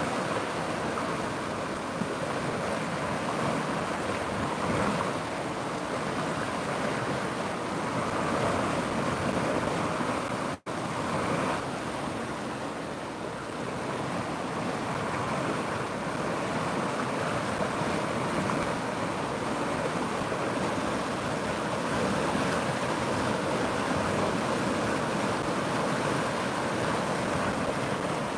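River water rushing steadily, an even wash of flowing water that briefly cuts out about ten seconds in.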